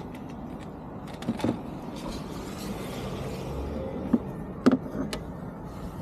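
Scattered handling knocks and clicks, the loudest pair near the end, over a steady low background noise.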